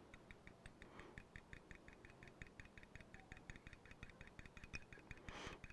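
Metal fork beating egg wash in a small ceramic bowl, its tines clicking faintly against the bowl about five times a second. A brief soft rush of noise comes near the end.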